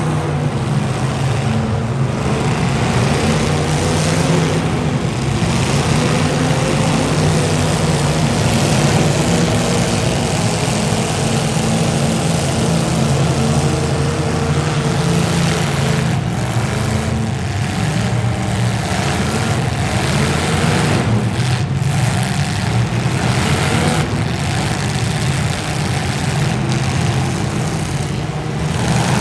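Demolition derby car engines running loudly and steadily, a low engine drone under a wide rush of noise.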